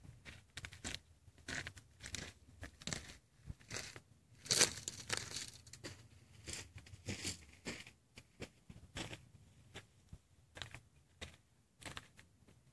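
Irregular rustling and crackling close to the microphone, with a louder scraping rustle about four and a half seconds in.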